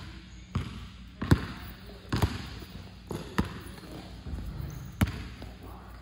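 A basketball bouncing on a hard indoor gym floor: about five separate sharp thuds at uneven intervals, the strongest about a second in and again near the end.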